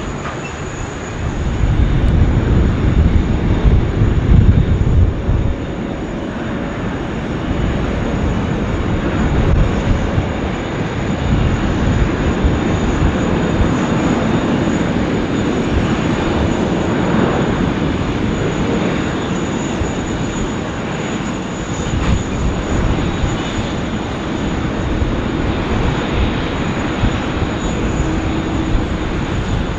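Jet airliner engine noise from a Boeing 777 landing, a heavy low rumble in the first few seconds, then a steady loud engine sound.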